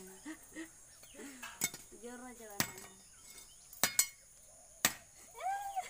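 A knife blade striking a fresh coconut as its fibrous husk is hacked and peeled off: about five sharp, irregular knocks, two of them in quick succession about four seconds in.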